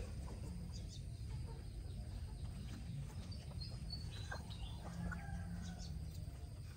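Faint bird calls, short clucks and chirps, over a low steady rumble.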